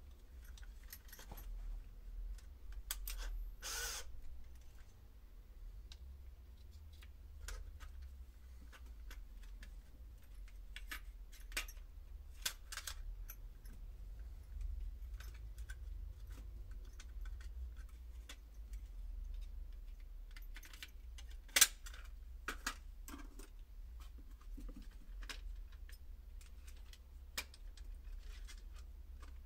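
Small tools and parts being handled in a workshop, giving scattered light clicks and clinks over a steady low hum. A short scraping rustle comes about three and a half seconds in, and one much sharper knock about two-thirds of the way through.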